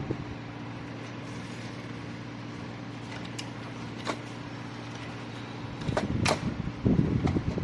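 A steady low machine hum, with a few sharp clicks and a louder stretch of clattering or handling noise near the end.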